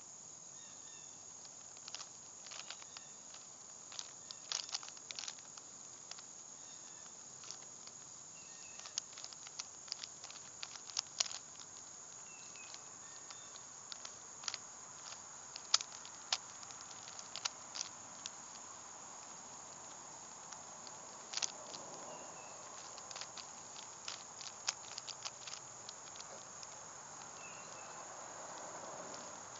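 Rubik's Cube being turned by hand during a solve: irregular plastic clicks and clacks of the layers, sometimes in quick flurries, with pauses between.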